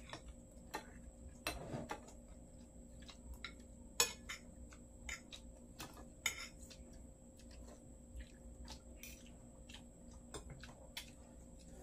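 Spoons and forks clinking and scraping against ceramic plates and bowls while people eat, in scattered light taps, the loudest about four seconds in and another a couple of seconds later.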